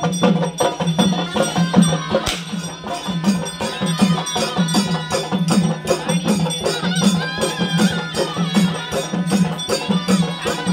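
Traditional Tamil folk festival music with a steady drum beat, about two beats a second.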